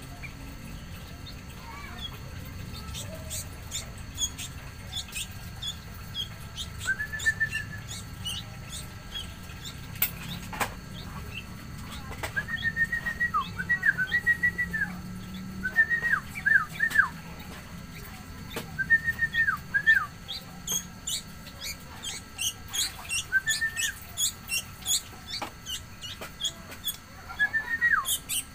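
Sooty-headed bulbul (kutilang) giving short whistled phrases that drop in pitch at the end, repeated every few seconds after the first several seconds, over a steady run of rapid high-pitched chirps.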